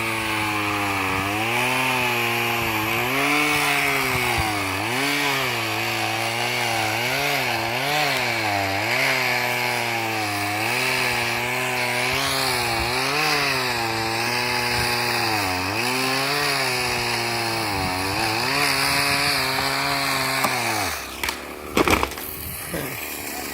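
Chainsaw running at full throttle and cutting wood, its engine note sagging and recovering again and again as the chain bites. About 21 seconds in the saw drops back, and a couple of sharp cracking knocks follow.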